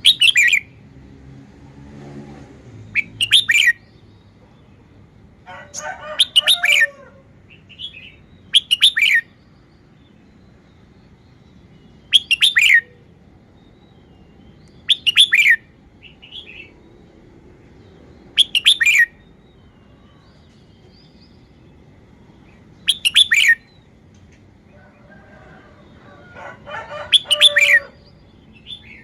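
Red-whiskered bulbul singing short phrases of falling notes, about nine in all, each under a second long with pauses of two to four seconds between them. The phrases about six seconds in and near the end carry a lower, rougher part.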